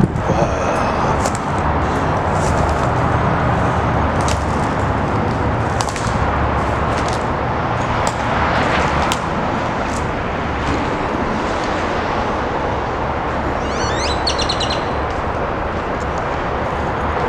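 A few quick bird chirps about three-quarters of the way through, over a loud, steady rumbling background noise with scattered clicks.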